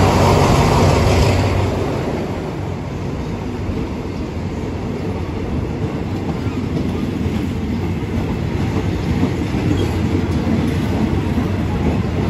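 A diesel locomotive and its passenger coaches running slowly past as the train draws in to a stop. The engine is loudest in the first two seconds, then the coaches roll by with a steady rumble and wheels clacking over the rail joints.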